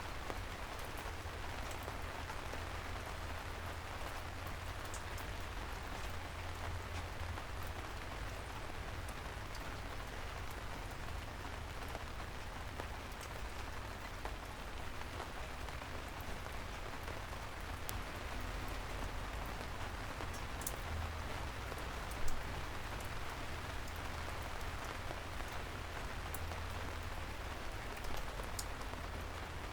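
Soft, steady rain falling on a city street, with scattered drip ticks over a low rumble and one louder tap about two-thirds of the way through.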